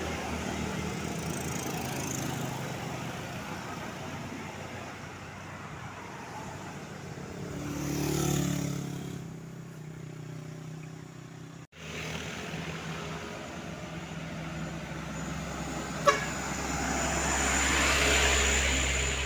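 Roadside traffic: a steady engine hum with vehicles driving past, one swelling and fading about eight seconds in and another near the end. The sound drops out for an instant about twelve seconds in, and there is a single sharp click a few seconds later.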